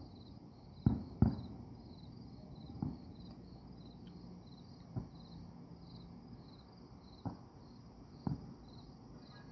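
Distant fireworks going off as six dull bangs, the loudest two close together about a second in. Crickets chirp steadily, about three chirps a second.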